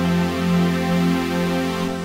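Live electroacoustic music: a synthesizer keyboard holds a sustained chord, with a pulsing low note over a steady low drone, and begins to fade near the end as the song closes.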